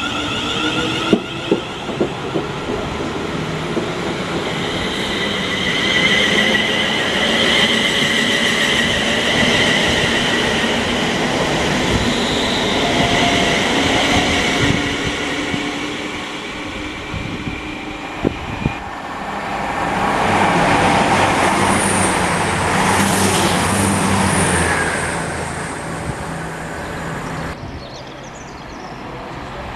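EMR Connect Class 360 Desiro electric multiple unit pulling away from the platform, its traction motors giving a whine that rises in pitch as it speeds up, with a few clicks of wheels over rail joints. The wheel and running noise grows louder and then fades near the end.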